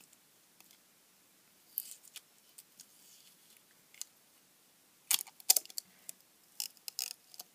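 Handling noise from taking apart a metal-cased arc lighter: sparse clicks and light scrapes as a small screwdriver works at the case and the inner body is eased out. A cluster of the sharpest clicks comes about five seconds in, with a few more near the end.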